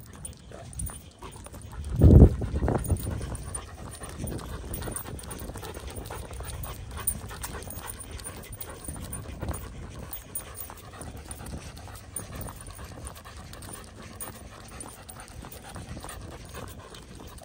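A Samoyed panting steadily with its tongue out while trotting on a leash. There is a brief, loud, low rumble about two seconds in.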